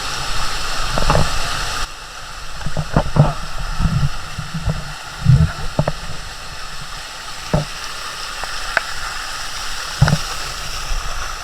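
Shallow water running and splashing over a waterfall's limestone rock, a steady hiss that drops a little about two seconds in, with scattered irregular low knocks.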